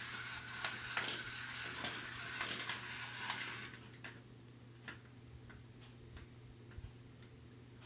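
Cats playing: a stretch of rustling with sharp clicks, then scattered light taps and clicks over a steady low hum.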